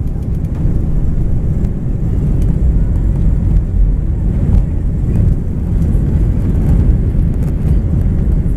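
Airbus A320 jet engines and rushing air heard inside the cabin during the climb just after takeoff: a loud, steady low rumble.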